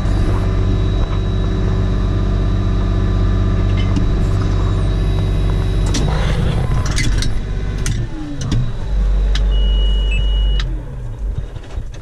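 Farm tractor engine running steadily, heard from inside the cab. About eight seconds in it gives way to a few clicks and knocks, then a deeper low rumble with a high tone lasting about a second.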